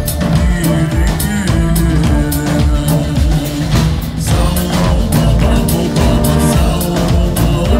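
Balkan brass band playing live: brass horns over a steady snare and drum-kit beat, with a man singing into a microphone.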